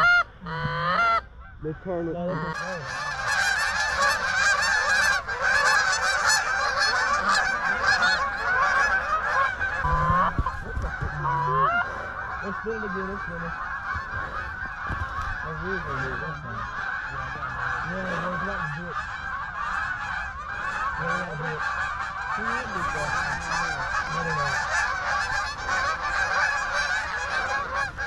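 A flock of Canada geese honking, many calls overlapping in a continuous chorus that fills in about two seconds in.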